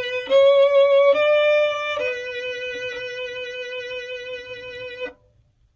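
Solo violin recording a take of a slow, lyrical opening-theme melody: four held notes, the last sustained about three seconds with slight vibrato, stopping about five seconds in. The playing is a little too strong for the gentle, tender feel intended, in the producer's judgement.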